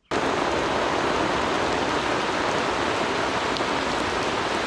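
Heavy rain falling, a steady, dense hiss that cuts in suddenly.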